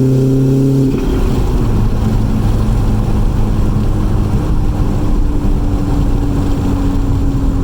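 Audi A4 1.8T turbo four-cylinder engine holding steady revs under boost, then about a second in the throttle closes and the steady note drops away with a brief turbo flutter. After that the engine runs on at a lower, rougher note as the car coasts.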